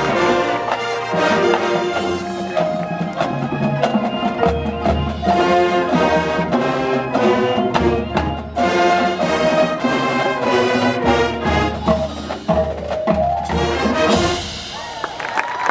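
A high school marching band playing, with brass and pulsing low drums. The music stops about fourteen seconds in, and a crowd starts cheering and whistling near the end.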